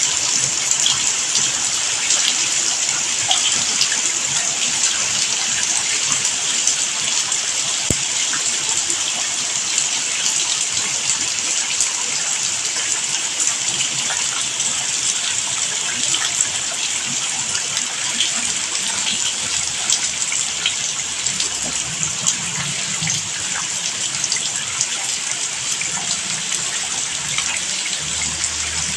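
Steady rain: an even hiss of falling water with fine drops pattering.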